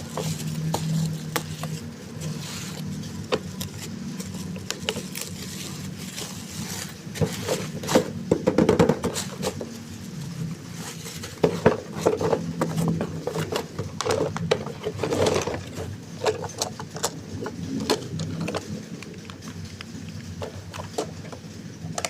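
Toy remote-control bus being handled and run: a low steady motor hum with many scattered plastic clicks and rattles, busiest in the middle stretch.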